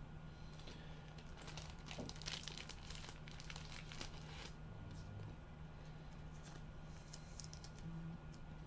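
Faint crinkling and rustling as gloved hands handle a thick trading card, with soft scattered clicks over a low steady hum.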